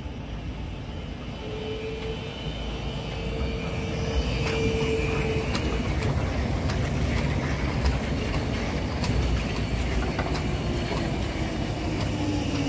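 Paris T6 tram approaching and passing close by. It gives a steady rumble and a whine from its motors, the whine falling in pitch near the end, with scattered clicks as the cars go past.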